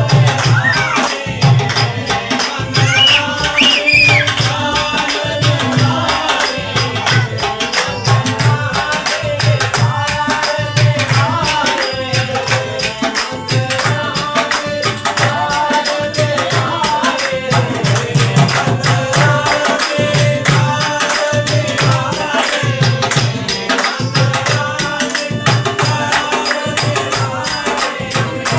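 Live devotional bhajan: a harmonium holds steady chords while tabla keep a steady beat about once a second, with fast jingling hand percussion and a voice singing the tune.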